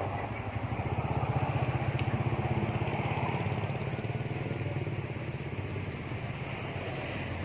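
An engine idling steadily, a low pulsing hum.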